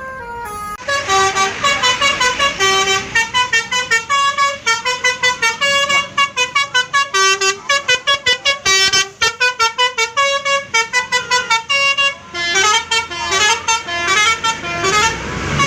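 Bus telolet horn playing a long, fast melody of short, clear notes that jump up and down in pitch, starting about a second in.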